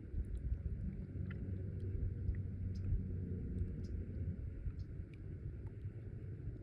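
Dawn outdoor ambience: a low, uneven rumble with faint, scattered bird chirps over it.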